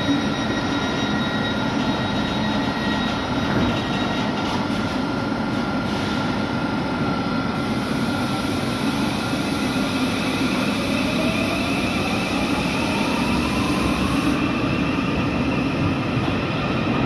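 Class 717 electric multiple unit standing at the platform with its equipment humming, then pulling away. About ten seconds in, its traction motors give a rising whine as it accelerates.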